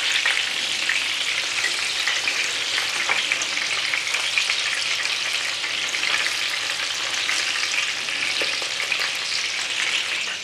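Frikadellen (minced-meat patties) frying in hot oil in a pan: a steady sizzling hiss with many small crackles and pops.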